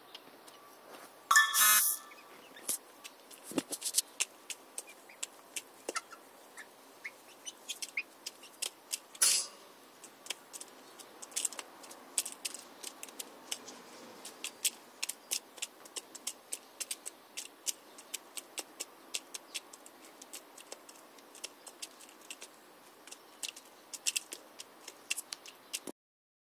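Young hens pecking seed from a plastic feeder tray: quick, irregular clicks of beaks on grain and plastic, growing denser in the second half. There is a louder, brief sound about a second and a half in and another around nine seconds.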